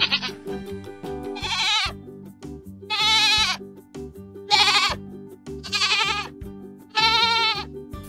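Goat bleating five times, each call a wavering bleat of about half a second, over background music.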